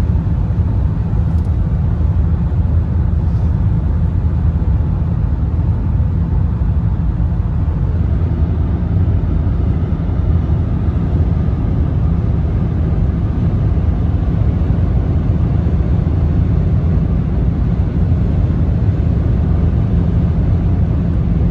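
Steady low rumble of road and engine noise inside a moving Mercedes-Benz car's cabin.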